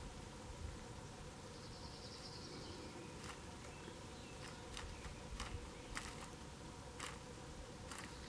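Faint, scattered sharp clicks, about eight of them over the second half, as a Siberian chipmunk picks through and handles seeds in a wicker basket. There is a brief faint buzz about two seconds in, over a quiet forest background.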